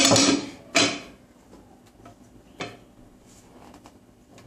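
An upturned metal saucepan full of cooked rice clattering onto a glass serving plate as the rice is turned out, followed by a sharp knock just under a second in and a lighter knock at about two and a half seconds.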